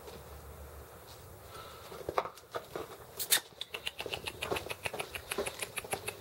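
Malamute puppies scuffling on concrete: a run of light clicks and taps, with one louder tap a little after three seconds, then a quick patter of about four or five clicks a second.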